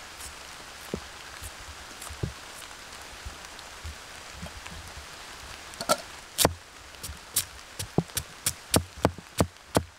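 Steady rain hiss. From about six seconds in, a quick run of sharp knocks, about two or three a second, like chopping on wood.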